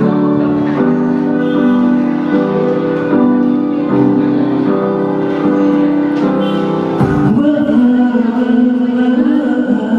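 Song accompaniment with sustained piano or keyboard chords; the arrangement changes about seven seconds in.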